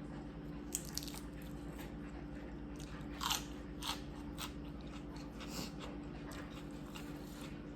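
Crunchy biting and chewing of food, with scattered sharp cracks, the loudest a little past the middle.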